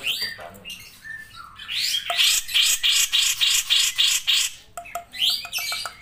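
Grey-cheeked bulbul (cucak jenggot) calling: a long, loud run of harsh repeated notes, about six a second, from about one and a half seconds in, then a short fast rattle of ticks near the end.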